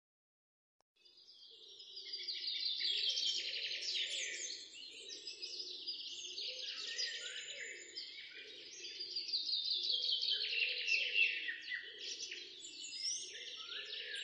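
A dense chorus of many birds chirping and trilling together, starting about a second in after a brief silence, with a lower pulsing sound beneath.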